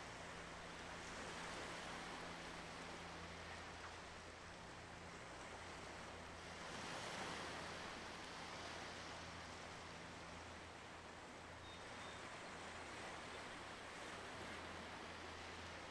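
Gentle sea waves washing on the shore, a soft hiss that swells once about seven seconds in, over a faint steady low hum.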